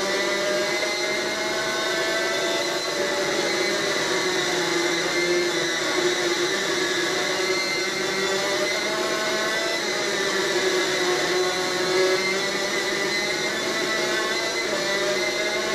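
Onboard sound of a superkart's two-stroke racing engine running hard at high revs, its pitch rising and falling steadily as the kart accelerates down straights and slows for corners.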